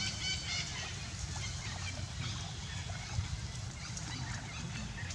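Many short, high-pitched chirping and squeaking calls from animals in the trees, densest in the first second and then scattered, over a low steady rumble.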